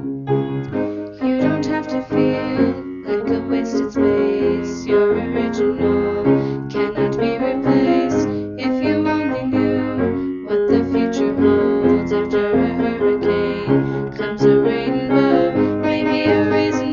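Piano accompaniment playing steady repeated chords, with female voices singing.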